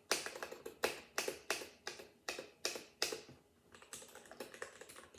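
Computer keyboard being typed on: distinct keystrokes about three a second, then after a short lull about three seconds in, quicker and lighter typing.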